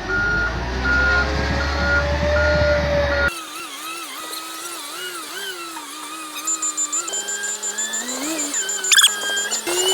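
Heavy machine's engine rumbling, with a reversing alarm beeping at an even pace. It cuts off sharply about three seconds in, giving way to a quieter wavering pitched sound.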